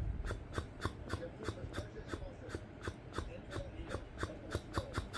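CPAP air escaping through the open mouth of someone wearing a nose-only mask, the lips or cheeks fluttering in a rapid putt-putt of about four to five pops a second, like a motor that won't start. The sound means the mouth has fallen open and the mask pressure is leaking out through it.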